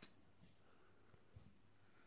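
Near silence: room tone, with one faint soft tick about a second and a half in.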